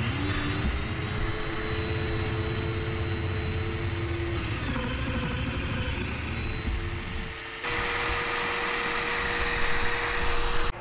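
Festool Domino joiner's motor running steadily as it plunge-cuts loose-tenon mortises in poplar, a continuous whine with a dust extractor drawing through the hose. The pitch sags briefly about halfway through as the cutter takes load.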